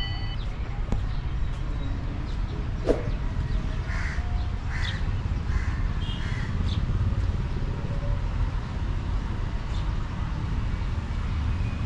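A bird calls four times in quick succession, under a second apart, over a steady low outdoor rumble. A single sharp click comes about three seconds in.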